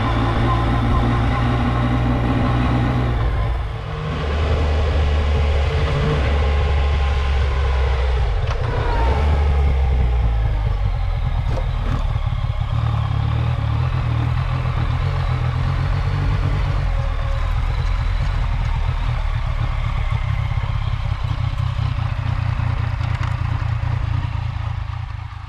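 Yamaha MT-09's three-cylinder engine running under way, its pitch shifting in steps, with a brief drop in level about four seconds in. The sound fades out at the very end.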